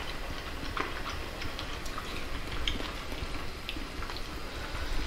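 Eating sounds: faint, irregular small clicks and taps of chopsticks against a porcelain bowl as food is picked up and eaten.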